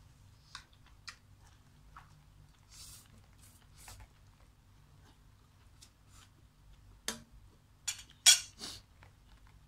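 Eating at close range: small clicks and rustles of a fork on a plastic takeaway container, and noodles being slurped off a fork, with a few louder slurps and clatters near the end. A low steady hum runs underneath.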